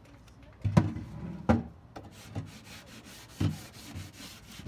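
Hand sanding of old wooden dresser drawers: sandpaper rubbing and rasping on the wood, broken by several wooden knocks and bumps as the drawers are handled. The loudest knocks come about a second in and again half a second later.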